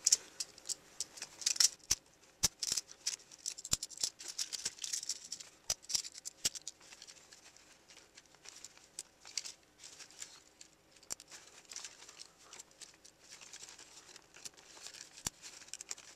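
Hard plastic toy parts clicking and rattling as hands work a Minicon onto a Transformers Armada Cyclonus figure, in repeated attempts to snap its parts onto their pegs. Many sharp clicks with light rustling, thinning out about halfway through.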